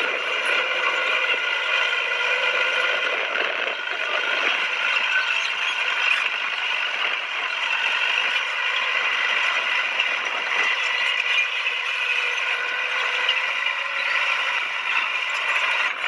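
Bulldozer at work: engine running with a steady clatter and squeal from its steel tracks.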